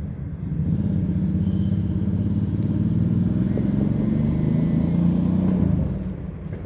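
A motor vehicle passing by, its engine a low rumble that swells about half a second in, holds for some five seconds and fades near the end.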